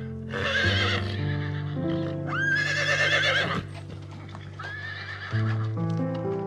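An animal calling three times, each call a rising cry that then holds a wavering pitch, over background music with sustained notes.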